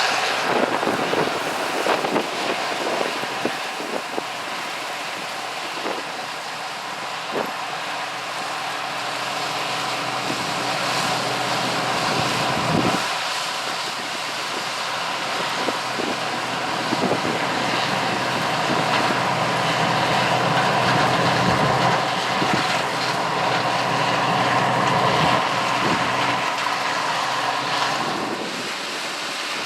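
Combine harvester working a corn field, its turbocharged six-cylinder Allis-Chalmers 670T diesel running steadily under load, with wind on the microphone. It grows louder in the second half and eases near the end.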